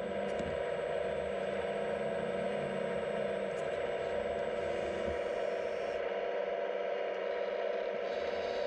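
Hydraulic pump of an RC Liebherr A918 model excavator running with a steady whine as the boom and bucket move, with a few faint clicks.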